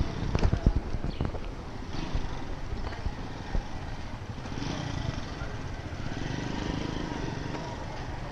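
Street ambience: a steady hum of vehicle engines, with low buffeting on the microphone in the first second.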